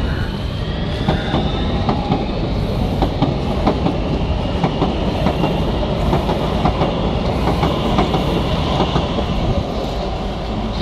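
Oslo Metro MX3000 train rolling past close by: a steady low rumble, its wheels clattering irregularly over the rail joints, and a thin high whine over the top.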